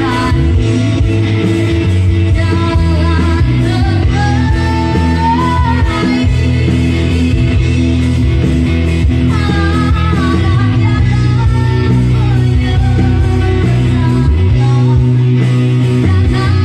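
Live band playing a pop-rock song: a woman singing over guitars, bass guitar and an electronic drum kit.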